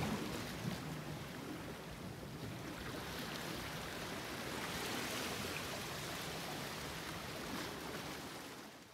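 Sea water washing against shore rocks: a steady rushing that swells gently and fades out at the very end.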